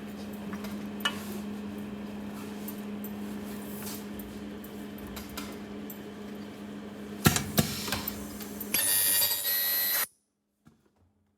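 Ultrasonic wire splicing machine in auto mode: a steady hum with scattered clicks, then sharp knocks about seven seconds in as the welding head comes down. About nine seconds in, the loud high-pitched screech of the ultrasonic weld runs for just over a second and cuts off suddenly.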